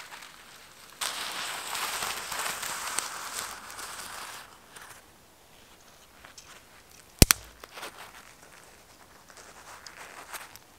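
Dead twigs being snapped off a conifer trunk by a gloved hand. A few seconds of dry crackling and rustling of twigs, then one sharp snap about seven seconds in, and a few small crackles near the end.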